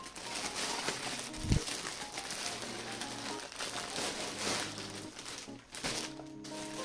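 Plastic packaging crinkling and rustling as a clear poly bag is pulled out of an orange plastic mailer, with one low thump about one and a half seconds in. Soft background music with held notes plays underneath.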